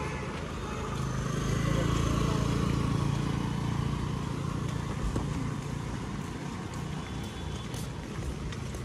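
A motor vehicle passing close by: its engine hum grows louder over the first couple of seconds, then fades away.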